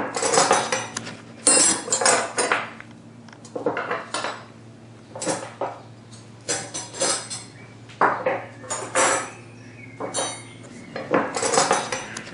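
Metal cutlery (knives, forks and spoons) being handled and clinking together, in clattering bursts every second or two.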